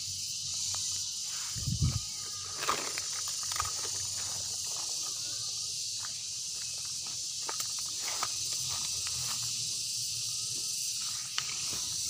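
Steady high-pitched insect chorus, with rustling, scattered clicks and footsteps as a freshly harvested banana bunch is carried and set down, and a low thump about two seconds in.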